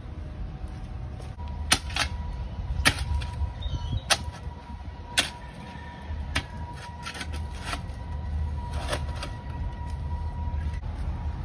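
Steel shovel blade striking and cutting into wet soil, a sharp knock about every second over several strokes, under a steady low rumble of wind on the microphone. A faint steady high tone runs underneath.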